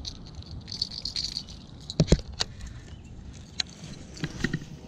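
Fishing rod and gear being handled close to the microphone: a short rustle, then a few sharp clicks and knocks. The loudest are a pair about two seconds in, with a small cluster near the end.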